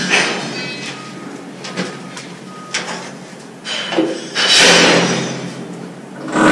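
PVC drain pipe being handled and worked at a joint: a few light knocks and clicks, then a louder scraping rush about four and a half seconds in.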